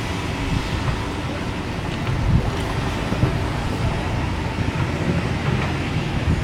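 Wind buffeting the microphone: a steady, loud low rumble with irregular flutter.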